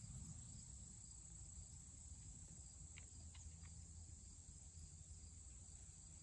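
Near silence outdoors: faint, steady high-pitched chirring of crickets over a low rumble, with a couple of faint ticks about halfway through.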